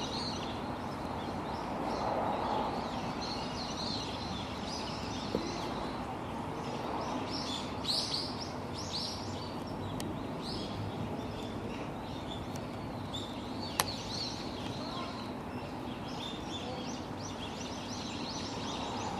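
Small birds chirping in short high calls, busiest about eight seconds in, over a steady outdoor background hiss. Two sharp clicks stand out, one about five seconds in and one near fourteen seconds.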